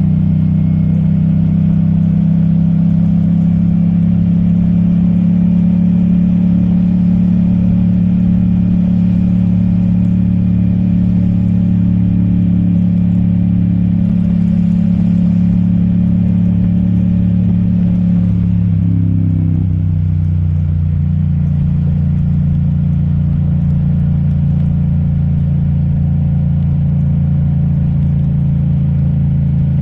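Yamaha MT-07's parallel-twin engine running steadily under way. About two-thirds of the way through, its note drops as the throttle is eased and the bike slows, then it settles into a steady lower note.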